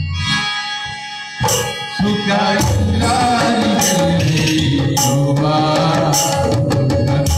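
Live Kannada song: a man singing with tabla and harmonium. The music thins in the first two seconds, two tabla strokes bring the ensemble back in, and it then plays on steadily.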